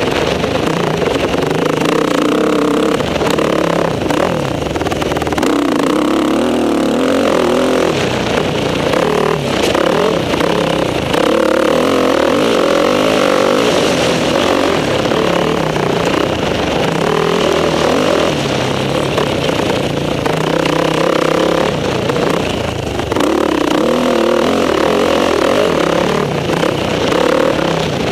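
Motocross bike engine heard from on the bike at race pace, revving up and dropping back over and over as it accelerates, shifts and backs off for turns.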